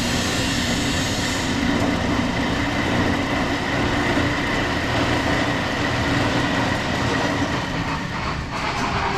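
Johnson band saw running: a steady mechanical whirring with a constant whine, shifting slightly near the end.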